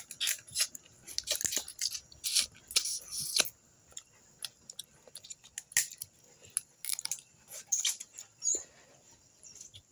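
Cooked crab being cracked open and eaten: a rapid run of sharp shell cracks and crunches for the first few seconds, then scattered cracks and chewing.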